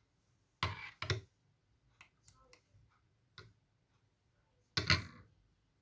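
A few sharp, separate clicks and knocks. Two come close together about half a second to a second in, fainter ones follow, and the loudest and longest comes near the end.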